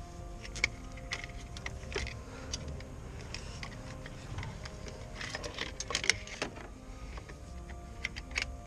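Clicks, rattles and rustles of an old, crumbling fuel-injection wiring harness and its plastic connectors being worked loose by hand and drawn out of a Mercedes-Benz C180 W202 engine bay. The clicks come at irregular moments and are busiest about five to six and a half seconds in.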